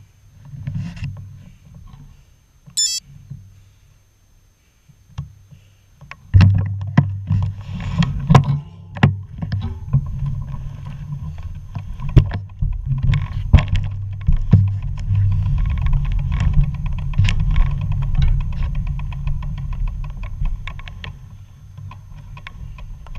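Wind buffeting and road rumble on a bicycle-mounted camera while riding, with frequent knocks and rattles; it grows much louder about six seconds in.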